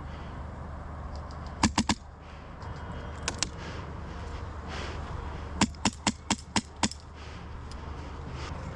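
Airsoft rifle firing quick single shots: a group of three about two seconds in, two fainter ones a little later, then six in a row at about four a second, over a steady low rumble.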